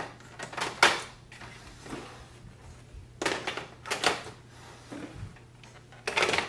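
Plastic toner cartridges knocking and clicking into the toner drawer of a Canon imageCLASS MF644Cdw printer as they are pressed into their slots: sharp plastic clacks in short groups, once near the start, again about a second in, a cluster around three to four seconds in, and again near the end.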